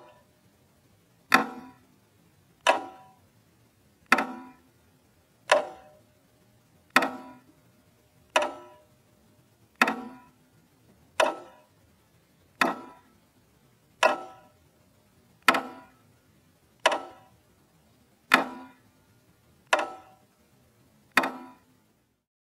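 Slow clock ticking, a heavy tick about every second and a half, each with a brief ringing tail; about fifteen in all.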